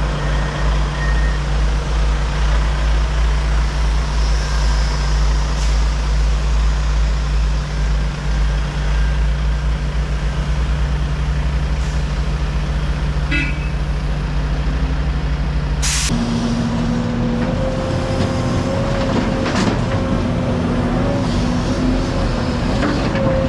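Heavy diesel engine running at a steady low idle. About two-thirds of the way through there is a short sharp hiss, and the engine note shifts to a higher, slightly wavering pitch, as when it is throttled up.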